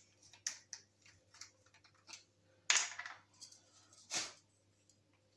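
Small clicks and taps of hard plastic parts being handled and set down, with louder knocks about half a second, three seconds and four seconds in.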